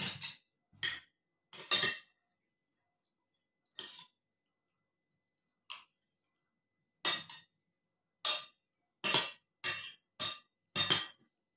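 A person eating: about a dozen short bursts of chewing and breathing noises and cutlery clinks, with dead silence between them.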